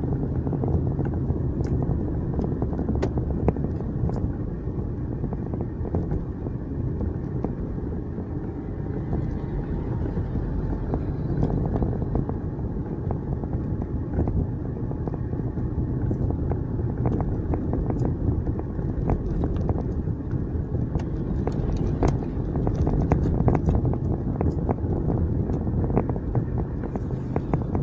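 Car cabin noise while driving on a wet road: a steady low rumble of engine and tyres, with scattered light ticks that come more often in the second half.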